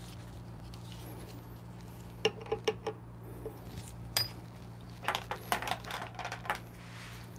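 Light metal clinks and taps from handling the DF64P grinder's steel bottom burr and burr carrier: a quick run of clicks about two seconds in, a single tap around four seconds, then a busier flurry of clinks between about five and six and a half seconds.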